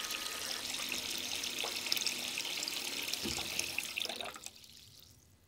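Bathtub mixer tap running, a stream of water pouring into the tub, then shut off about four seconds in.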